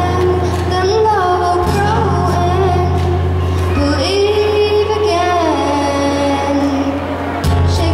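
A young girl singing a pop Christmas song, accompanied by acoustic guitar, over a strong held low bass note that shifts twice.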